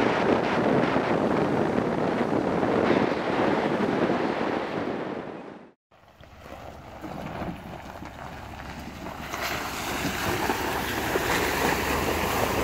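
Wind rushing over the microphone of a moving truck, with road and engine noise under it. The noise fades out about halfway through, drops to silence for a moment, then comes back quieter and slowly builds.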